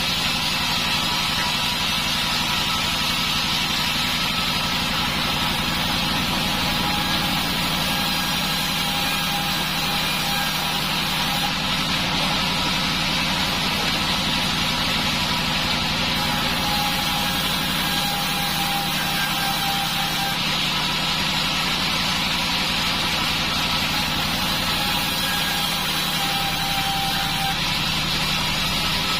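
Band sawmill running steadily, a continuous machine drone with a higher hiss from the blade. Faint whistling tones rise in and fade out a few times.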